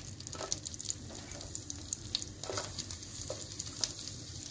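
Chopped garlic frying in melted butter in a pan: a steady sizzle with scattered sharp crackles and a few louder pops.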